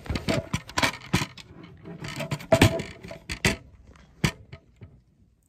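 Handling noise of a phone camera being gripped and repositioned by hand: a quick run of clicks, knocks and scrapes, ending with one sharp knock a little over four seconds in.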